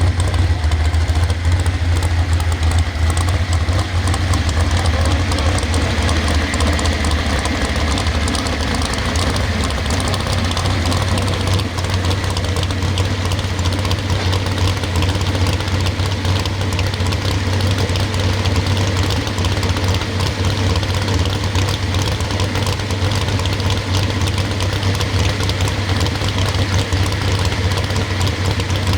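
Pro stock pulling truck's big engine idling steadily, with a loud, deep, even hum and no revving.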